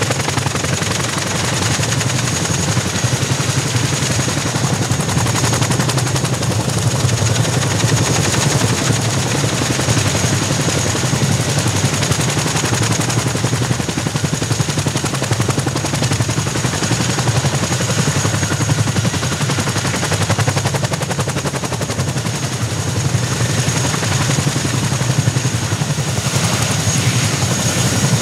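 CH-47 Chinook helicopter's tandem twin rotors turning at speed, a steady rapid chopping of blade slap with a thin high whine held throughout.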